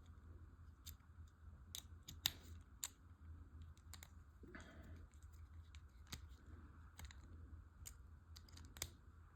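Faint, scattered small clicks of a screwdriver tightening tiny screws and handling small model-kit parts, over a steady low hum.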